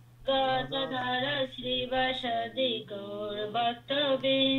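Several voices singing a devotional kirtan line in unison, answering the lead line in call-and-response. They come over a video-call link with the top end cut off, so the singing sounds thin, and they begin after a short pause.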